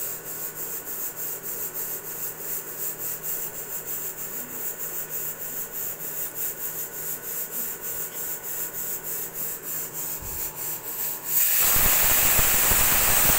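Pressure cooker on a gas flame, hissing in quick, even puffs of steam, about three to four a second. About eleven seconds in it breaks into a loud, steady rush of steam as the cooker whistles.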